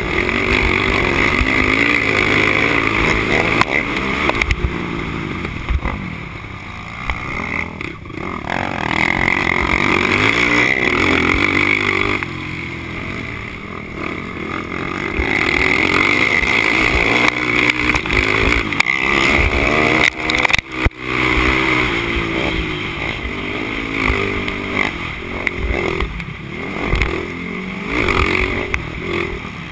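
Honda TRX450R quad's single-cylinder four-stroke engine at race pace, revving up and falling away again and again through the gears and corners, with heavy wind rush on the camera microphone. The engine eases off a few times and cuts out sharply for a moment about two-thirds of the way through.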